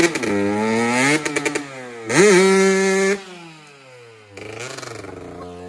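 Dirt bike engine revving hard in repeated throttle bursts. The pitch climbs sharply, is held high for about a second, then falls back to a low idle before a lighter rev near the end.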